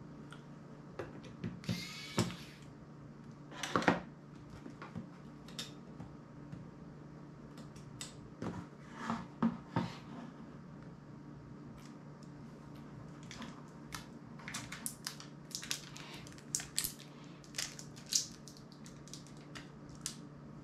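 Small hand tools prying and picking at a phone's metal-and-plastic body: an irregular run of sharp clicks, snaps and scrapes, the loudest about four seconds in, with a short rasp about two seconds in. A steady low hum runs underneath.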